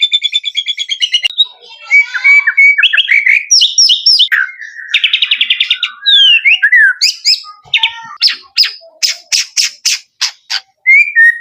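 Male white-rumped shama (murai batu) singing a varied, rapid song. It opens with a fast rattling trill, moves into clear whistled notes and quick downward-slurred whistles with a buzzy passage, and ends in a run of sharp, rapid chip notes.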